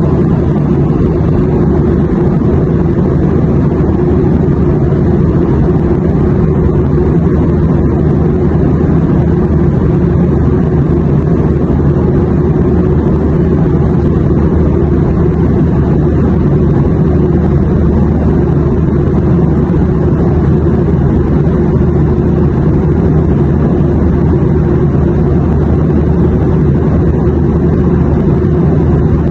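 Airliner cabin noise: a steady, deep rumble and hum of jet engines and airflow, unchanging throughout.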